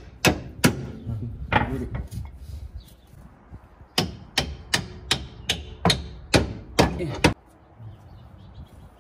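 Metal-on-metal hammering with ringing blows: two strikes, another about a second and a half in, then a quick run of about ten blows from about four seconds in that stops after about seven seconds.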